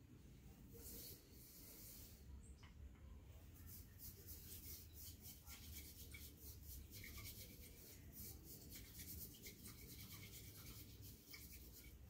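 Faint, rapid scratchy swishing of a white bamboo tea whisk (chasen) worked in the rinse water of a tea bowl, the whisk rinse of the closing stage of the tea procedure. A single light click comes shortly before the swishing starts.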